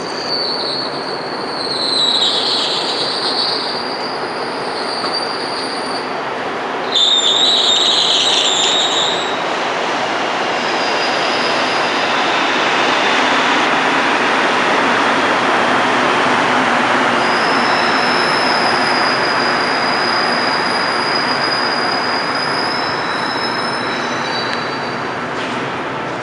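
Rubber-tyred MR-73 metro train running through the station: a broad rumble that swells through the middle and fades near the end. High-pitched squeals come and go over it, in two patches near the start and again in the second half.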